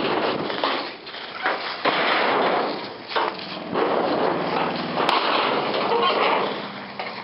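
An old feed shed being crushed: repeated loud cracking, crunching and banging of the structure breaking apart, with an engine running low underneath in the second half.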